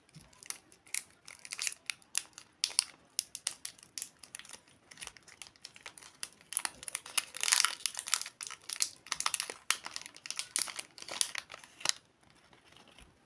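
Candy wrapper being crinkled and torn open by hand: rapid, irregular crackling, busiest in the middle, that stops about a second before the end.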